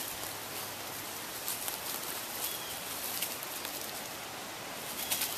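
Dry leaf litter rustling and crackling as dogs scramble across it, a steady crackly hiss with scattered light ticks.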